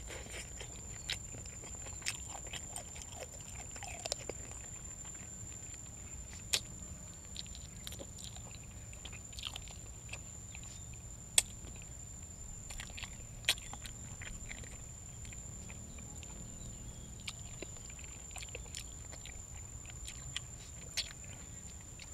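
A person eating: chewing with scattered small clicks and knocks, a few sharper ones, over a steady high-pitched tone.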